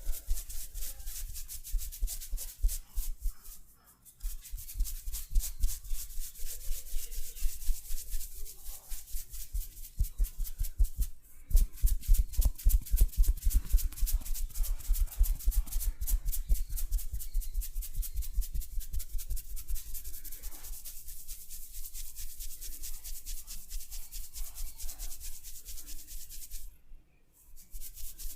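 Hands rubbing vigorously over a head of hair and scalp in a head massage, a fast rhythmic swishing friction of about four strokes a second. It stops briefly three times.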